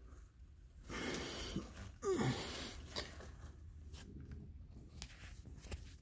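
Breath sounds close to the microphone: a rushing breath out, then a sharper sneeze-like sound with a falling pitch about two seconds in, with a few light clicks after.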